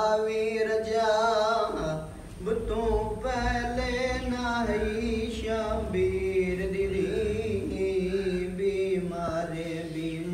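A man reciting a majlis in a slow melodic chant, holding long, wavering notes with short breaks between phrases.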